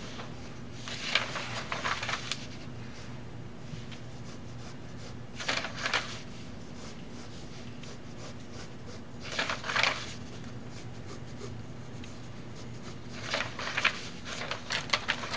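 Pencil drawing on animation paper in four short scratchy bursts a few seconds apart, mixed with the rustle of the sheets being lifted and flipped, over a steady low hum.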